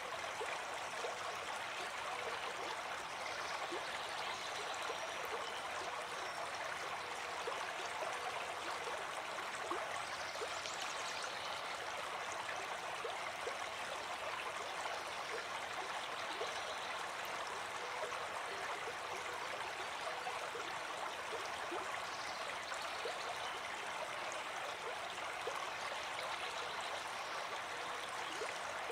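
A small brook flowing over a shallow, stony riffle: a steady, even rush of running water.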